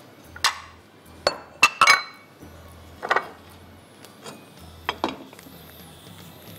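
Kitchen dishes and utensils clinking and knocking together: a quick cluster of sharp clinks in the first two seconds, then two more spaced a couple of seconds apart.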